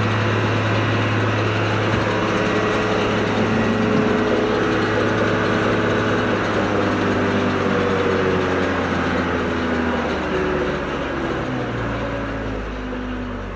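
JCB Fastrac tractor's Cummins diesel engine running near full revs, driving a round baler through the PTO. Over the second half the pitch falls gradually and the sound eases off as the revs come down.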